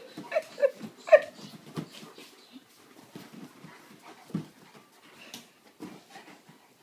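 Two dogs at play: four short, high yips in quick succession within the first second or so, then quieter scuffling.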